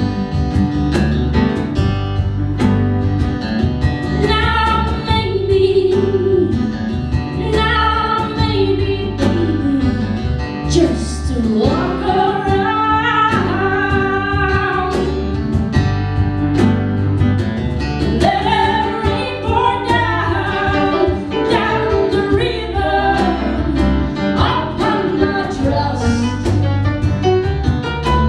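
A band playing a pop song with a lead vocal, backed by acoustic guitar, bass guitar, piano and cajon keeping a steady beat.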